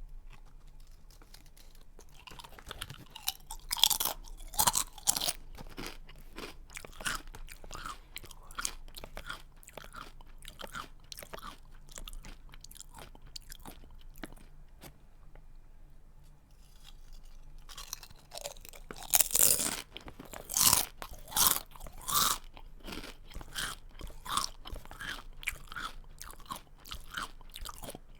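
Someone chewing a crunchy snack close to the microphone: a run of irregular crunching chews, a pause of a few seconds around the middle, then a fresh bite and a second, louder run of crunching.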